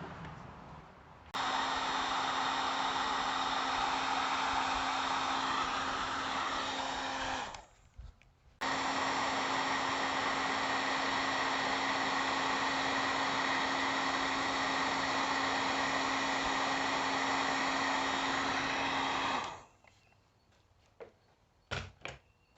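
Electric heat gun blowing steadily in two runs, switched off for about a second in between and cut off near the end, followed by a few sharp clicks.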